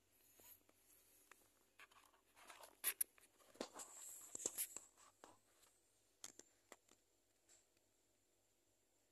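Faint rustling and light clicks of a phone being handled while it films. The sounds are scattered through the first five or six seconds, then die away to near silence.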